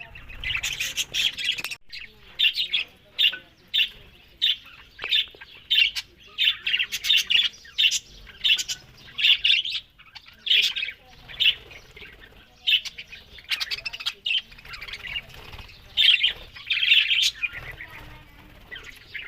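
Pet parrots chirping and squawking in a quick run of short, shrill calls that keep coming with only brief gaps.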